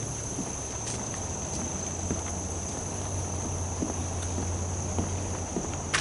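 Steady high-pitched chorus of insects, crickets or similar, with a few faint knocks of footsteps on the wooden boardwalk.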